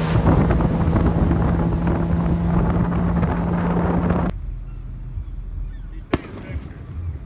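Boat engine running steadily under heavy wind noise on the microphone while the boat is underway. It stops abruptly about four seconds in, leaving a quieter background, and a single firework bang sounds about six seconds in.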